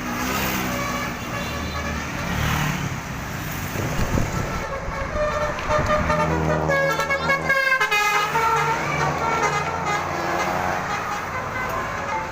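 Bus 'telolet' basuri musical horn playing a tune of quick stepped multi-tone notes, busiest in the middle, over the bus engine's steady low running.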